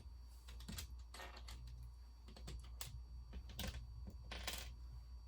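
Small plastic Lego pieces clicking and clattering as they are handled and pressed together: a string of irregular light clicks with a few short rattling bursts.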